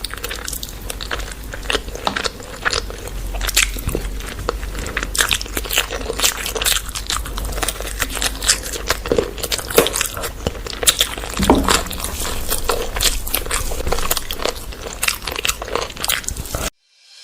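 Close-miked eating: dense, irregular wet chewing, biting and crunching of food. It cuts off suddenly just before the end.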